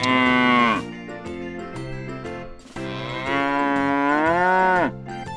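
Two cartoon cow moos over light background music: a short one at the start and a longer one about three seconds in that swells and then drops away.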